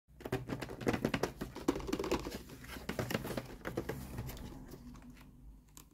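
Fingers tapping and scratching quickly on cardboard toy boxes and their clear plastic windows, a dense patter of small clicks that thins out and fades about four to five seconds in, with one last click near the end.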